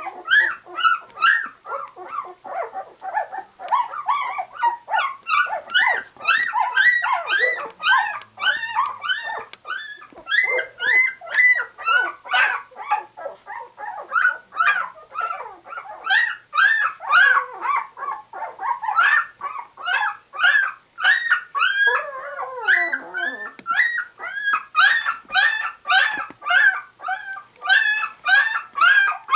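Two-week-old English cream golden retriever puppies crying in a steady string of short high-pitched calls, about two a second, with one longer call falling in pitch about two-thirds of the way through.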